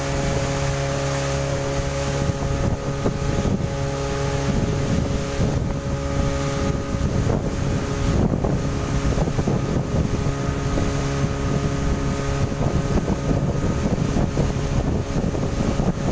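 Speedboat's outboard motor running at a steady cruising speed, a constant engine drone, with wind buffeting the microphone.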